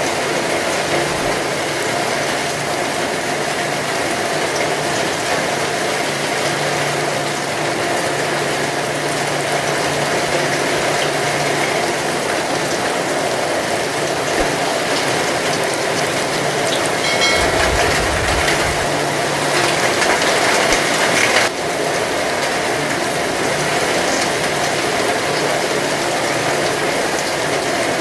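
Heavy rain pouring down steadily, with a faint low hum under it for most of the time. About two-thirds through, it grows louder for a couple of seconds, then drops back abruptly.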